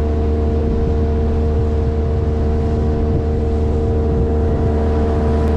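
Motorboat engine running at a steady speed, a constant drone with a hum of even tones.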